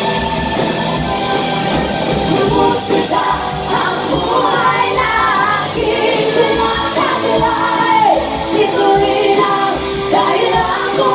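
Live band performance: several women singing over electric guitar, bass guitar and a steady beat, played loud through the venue's sound system.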